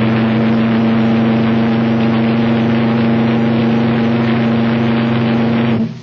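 RMS Mauretania's steam whistle sounding one long, steady, deep blast that cuts off just before the end.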